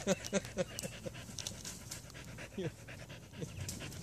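A dog panting close to the microphone: quick, even breaths, strongest in the first second and fainter after.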